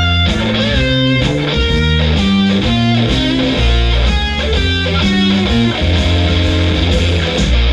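Rock music with electric guitar over a heavy bass line.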